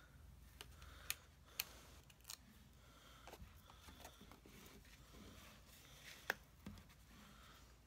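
Faint handling of paper and cardstock: backings peeled off foam adhesive dots and a stamped panel pressed onto a card, with a few light clicks, the sharpest about six seconds in.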